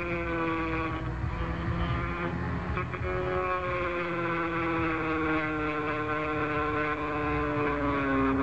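Rotary tool with a small cutting disc on a flex-shaft handpiece, whining as it cuts into a scale model car's body. The pitch sags briefly about a second in, comes back up, then slides slowly lower as the disc is pressed in, lowest near the end.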